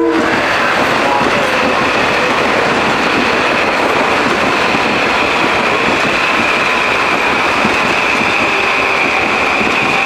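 Metro-North commuter train running past close by: a steady loud rumble and rattle of wheels on rail, with a steady high whine over it.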